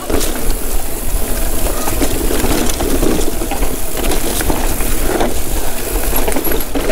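Mountain bike riding down a rough dirt trail: knobby tyres rolling over dirt and stones, with a steady clatter of small knocks and rattles from the bike, and a constant low rumble of wind on the microphone.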